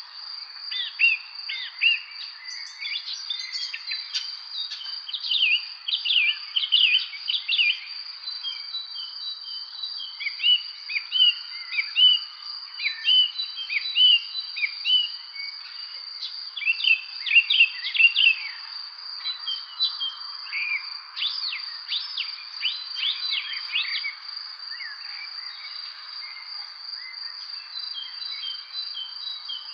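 Spring songbirds chirping in many quick short notes, in busy clusters with thinner stretches between. Under them runs a continuous high, steady insect trill.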